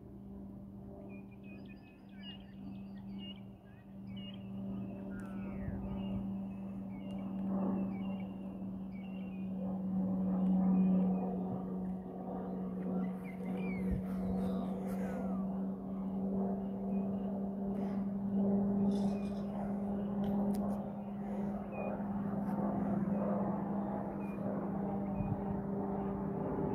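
Aircraft flying overhead, a steady drone that grows louder over the first ten seconds or so and then holds. Birds chirp faintly in the first few seconds.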